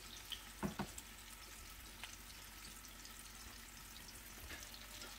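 Floured chuck roast searing on a bed of onions in hot grease in a skillet: a faint, steady sizzle, with two short knocks a little under a second in.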